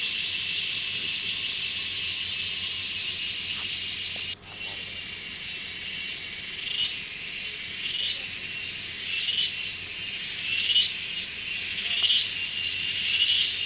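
Steady high-pitched drone of forest insects. It drops out briefly about four seconds in, then comes back with a run of rising swells, each ending in a peak, about one every second and a quarter.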